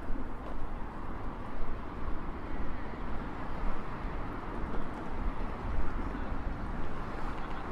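City street ambience: steady traffic noise with a low rumble that wavers in loudness.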